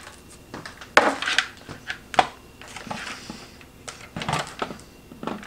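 Scattered clicks and knocks of hands handling a plastic ice cream maker and its power cord while plugging it in, the sharpest about one, two and four seconds in.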